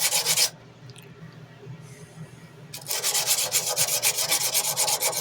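Hand sanding a steel tanto knife blade: sandpaper on a hard backer rubbed back and forth in quick, even strokes, about five a second. The strokes stop about half a second in and start again near three seconds.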